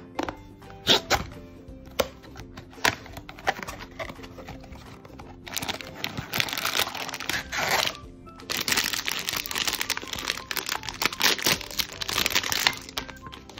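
A few sharp clicks as the cardboard blind box is opened, then a plastic foil blind-box bag crinkling loudly in two long stretches as it is pulled out and handled. Soft background music plays throughout.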